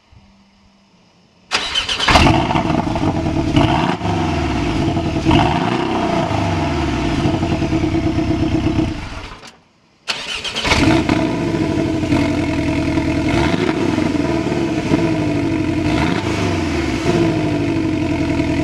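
A Porsche 718 Cayman's 2.0-litre turbocharged flat-four, on its standard exhaust without the sports exhaust, is started in Sport mode about a second and a half in. The revs flare up and settle into a steady idle. The sound falls away about nine seconds in, and the engine starts again about a second later and idles.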